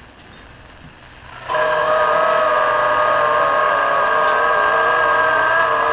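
Shortwave radio receiver playing a strange signal: radio hiss, then about a second and a half in a steady chord of several sustained tones, like a horn, cuts in and holds.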